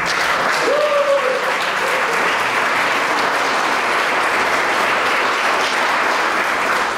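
Audience applauding at the end of a song: steady, dense clapping throughout.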